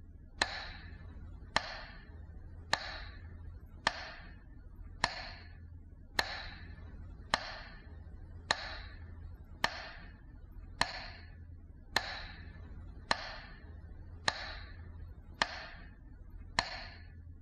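Metronome ticking slowly and evenly, about one tick every second and a bit, each tick with a short echoing tail, over a faint steady low hum.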